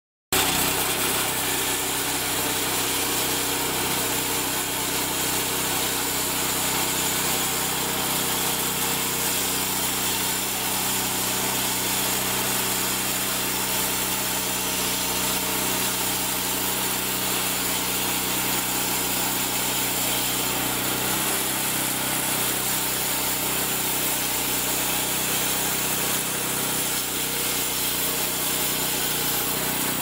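Small gasoline engine of a homemade band sawmill running steadily at speed, driving the band blade.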